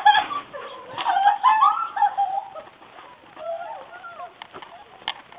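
High, short squeals and yelps from people running barefoot through snow, at a distance, with a few brief knocks in between.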